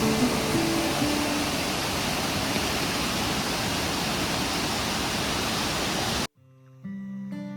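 Steady rush of a waterfall, an even wash of water noise that cuts off abruptly about six seconds in; gentle acoustic guitar music follows.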